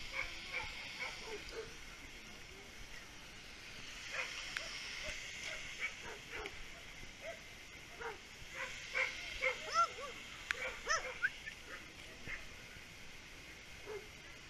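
Many dogs barking and yelping at once, short calls overlapping, thickest about two-thirds of the way through.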